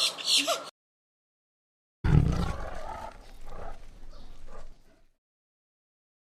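A run of squawking animal calls breaks off near the start. About two seconds in, a loud, low, rough animal call begins and fades away over about three seconds.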